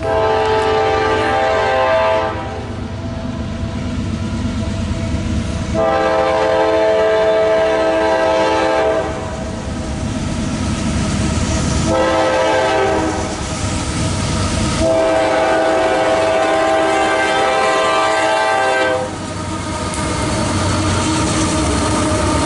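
CSX freight locomotive's air horn, several tones sounding together, blowing the grade-crossing signal as the train approaches: two long blasts, a short one, then a long one. Near the end the lead diesel locomotives pass close by with engine rumble and wheels clicking over the rail joints.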